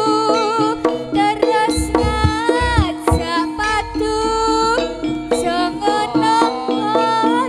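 Live East Javanese jaranan music: a lead melody sliding up and down in pitch over a steady held tone and kendang-style hand drums. Heavier drum strokes come in from about two seconds in.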